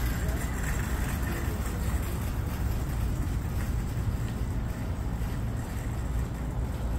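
Steady low rumble of wind buffeting the microphone, with a faint even hiss above it.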